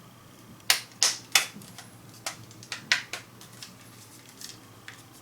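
Sharp plastic clicks and snaps from a TV remote's case halves being pressed and snapped together during reassembly. Three loud clicks come close together about a second in, then lighter clicks follow.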